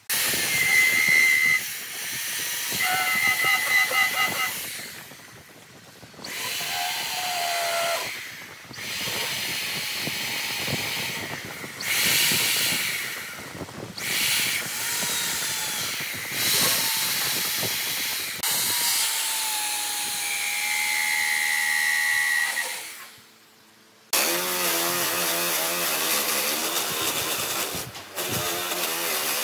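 Power sanding of old, weathered wood: an electric drill spinning an abrasive ball, and later a handheld electric motor turning a sanding disc, grind on the timber with a steady hiss and a high whine that shifts in pitch. The sound is broken by several short gaps.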